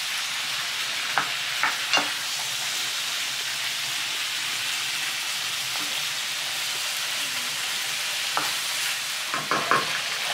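Shrimp sizzling steadily as they fry in hot oil in a pan, with a few short clicks and knocks, more of them near the end.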